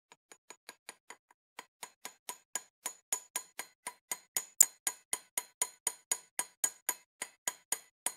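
Rapid, even hammer taps, about four a second, on a pipe used as a driver to seat the new center support bearing onto a Mercedes GL driveshaft. The taps start light and grow harder over the first few seconds, with a brief pause early on.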